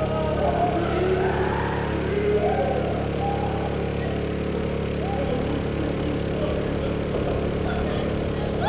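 Steady low hum of running engines from city street traffic, with faint wavering higher sounds drifting over it.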